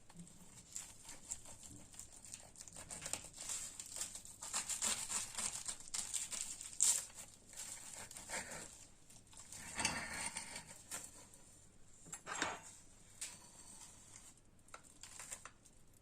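Dry crackling and crinkling with many small clicks, in short louder bursts a few times.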